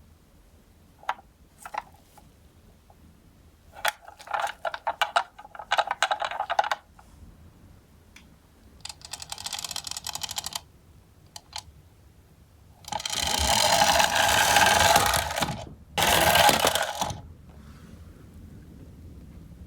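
Toy minicars rolling and clattering along a slope track: scattered clicks and rattles, then a fast, even clatter of rolling wheels, loudest in two stretches past the middle.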